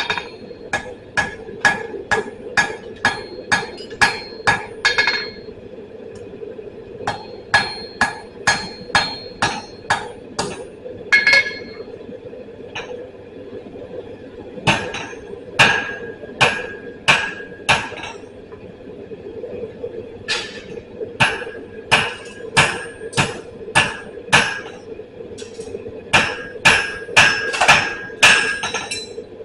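Blacksmith's hammer striking steel on an anvil while forging a punch, in runs of quick blows about two to three a second, each with a short metallic ring. There are brief pauses between the runs, and a steady hum runs underneath.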